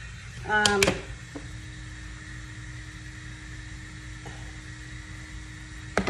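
A woman's brief vocal sound just under a second in, then a low steady hum that begins with a soft click a little over a second in.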